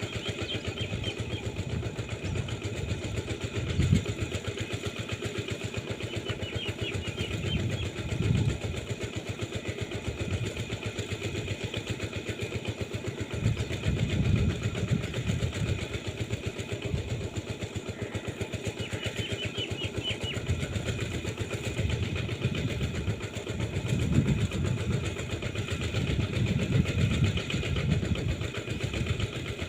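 An engine running steadily with an even, rapid pulse, its low rumble swelling louder now and then.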